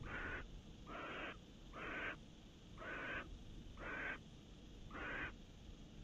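Barn owl giving a series of six harsh hissing "snore" calls, each under half a second and about one a second, stopping a little after five seconds in. This is the barn owl's food-begging call, here from the female calling her mate for a mouse.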